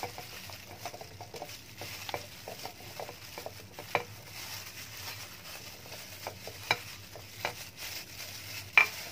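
Garlic cloves, ginger pieces and green chillies dropped by hand into a food chopper's bowl, landing as scattered light clicks and knocks a second or two apart, over a faint steady hiss.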